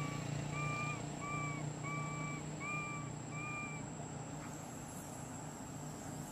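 A series of six short, clear calls, each on one even pitch and spaced a little over half a second apart, which stop about four seconds in. A steady low hum runs underneath.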